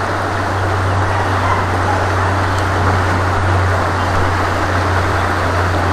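Steady rush of the Kennebec River's flowing water: an even, unbroken noise with a strong low rumble.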